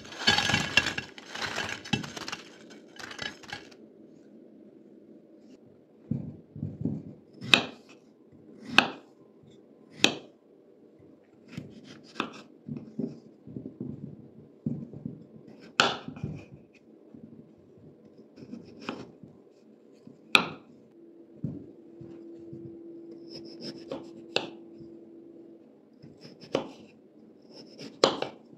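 Kitchen knife cutting peeled raw potatoes into chunks on a wooden cutting board: single sharp knocks as the blade goes through and meets the board, irregularly spaced every second or two. It opens with about three seconds of dense crunchy crackling.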